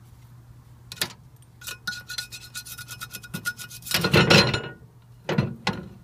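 A wooden stick scraping and prodding across the scorched glass microwave turntable: a click, then a run of quick scratching strokes with light clinks, and louder rough scrapes about four seconds in and again near the end.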